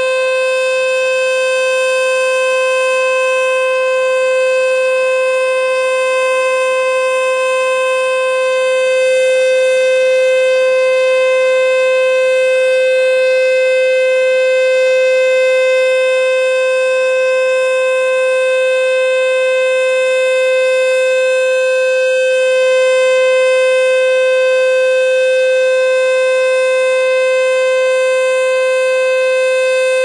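ASC T-121 outdoor warning siren sounding a steady alert signal: one loud, held pitch with a ladder of overtones and no rise or fall, swelling slightly in loudness now and then.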